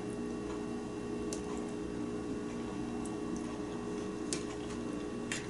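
Metal spoon clinking and scraping against a ceramic soup bowl in a few sharp, spaced ticks, over a steady hum.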